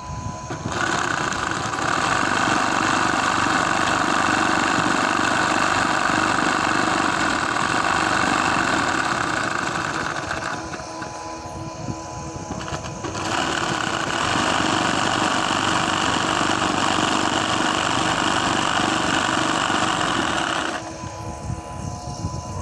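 Embroidery machine stitching at speed, running in two long spells with a pause of a couple of seconds about ten seconds in. During the pause only a quieter steady hum remains, and the hum returns near the end when the stitching stops.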